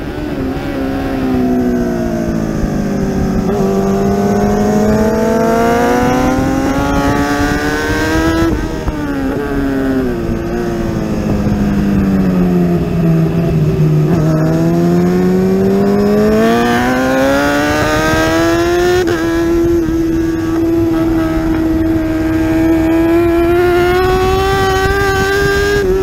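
Kawasaki ZX-10R inline-four engine heard onboard at racing speed, with a constant wind rush. The engine note falls twice as the bike slows for corners and climbs again under acceleration, breaking off sharply at gear changes about eight and nineteen seconds in, then holds steady near the end.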